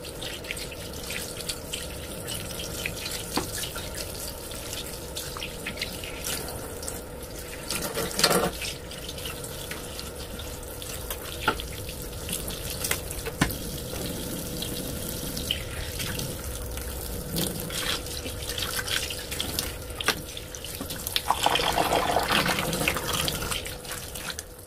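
Tap water running into a sink over a wet tie-dyed shirt while hands rinse and work the fabric, with splashing and dripping: excess dye being washed out. The splashing gets louder about eight seconds in and again a few seconds before the end.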